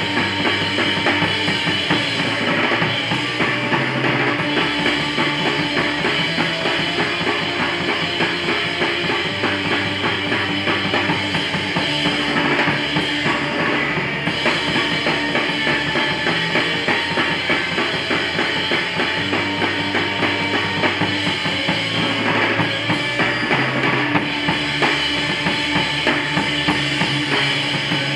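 Crust punk band playing live, full-band: a drum kit with bass drum and cymbals, a bass guitar line moving between notes, and electric guitar. The sound is loud and unbroken.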